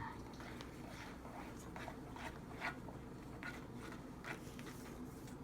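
Faint, irregular ticks and short scrapes of a spoon stirring a slime mixture in a mixing bowl.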